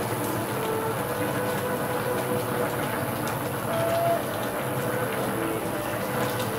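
Fish and eggplant in a vinegar broth simmering in an open saucepan: a steady bubbling hiss, under soft background music with sustained notes.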